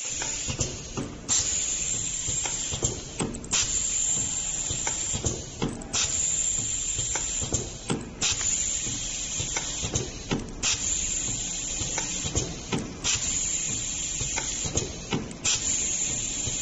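Semi-automatic fold-over labelling machine for straws and candy sticks cycling: a steady hiss with sharp clicks, broken briefly about every two and a half seconds.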